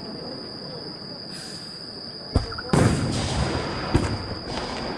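Aerial firework shells bursting: a sharp bang about two and a half seconds in, a louder one right after with a rolling echo, and a smaller bang near the end.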